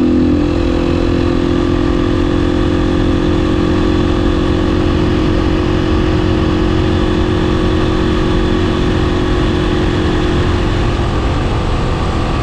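Beta 500 RS supermoto's single-cylinder four-stroke engine running at a steady cruise over a heavy low rumble, its engine note easing off near the end.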